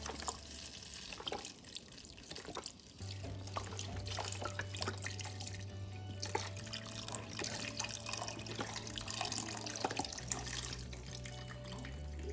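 Chicken broth poured from a carton into a pot of cooked shredded chicken, splashing and trickling, over soft background music.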